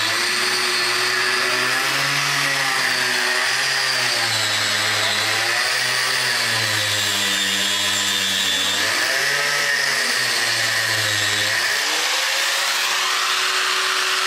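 Angle grinder running and cutting into a cardboard-wrapped bundle of paper. Its motor pitch repeatedly sags and recovers as the disc bites in and eases off.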